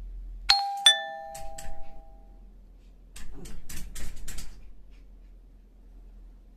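Two-note descending doorbell chime, a high tone then a lower one, each ringing on for over a second. It is followed by a rapid run of sharp clicks and rattles.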